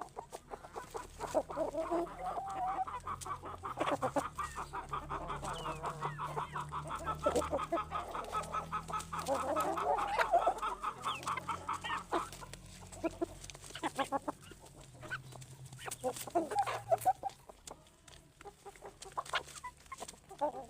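A flock of chickens clucking and calling: a busy, overlapping chorus for the first twelve seconds or so, then fewer, scattered clucks.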